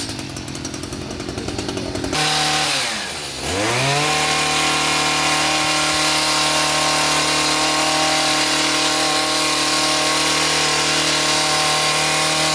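Two-stroke petrol hedge trimmer engine. It rattles rapidly at first, then runs at high revs, dips briefly about three seconds in and revs back up. It holds steady at full throttle while the blades cut through a hedge.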